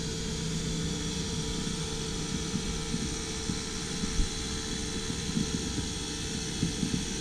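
Allett Liberty battery-powered cylinder mower running, a steady whirr with a hiss from the spinning reel and small irregular knocks underneath.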